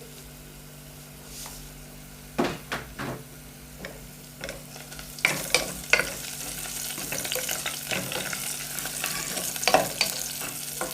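A cooking utensil knocks against a pan several times while food is stirred, and food starts sizzling in hot oil. The sizzle builds from about halfway through and keeps going.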